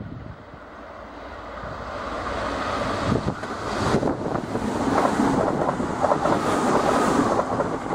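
Keihan 10000 series electric train approaching and running past close by, its rumble growing louder over the first few seconds and staying loud as the cars go by, with wind buffeting the microphone.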